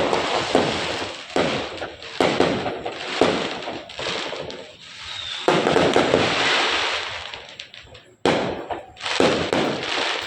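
Fireworks going off in quick succession, overlapping bangs with crackle between them. A longer, dense crackling volley comes about halfway through, and a sudden loud burst follows about two seconds later.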